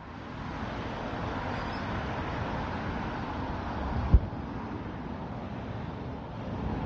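Steady outdoor background noise, a rushing hiss over a low rumble, with one dull thump a little past four seconds in.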